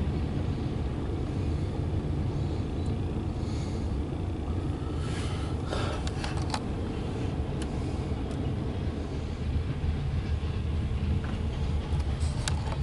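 Loaded coal hopper cars of a freight train rolling past: a steady low rumble of steel wheels on the rails, with a few sharp clicks about halfway through and near the end.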